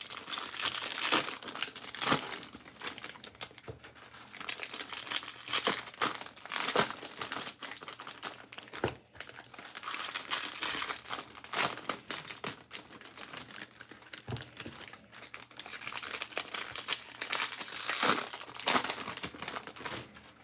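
Foil and plastic trading-card wrappers being crinkled and torn open by hand. The crackling runs on with a louder rustle every second or two and a short pause about nine seconds in.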